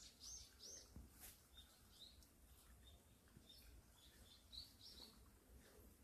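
Faint bird chirps: short high calls, two close together about half a second in and several more scattered through the middle, over quiet outdoor background.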